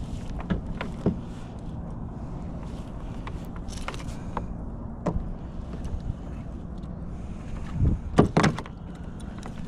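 Scattered clicks and knocks of gear being handled in a plastic fishing kayak, with a louder thump and two sharp knocks near the end, over a steady low background.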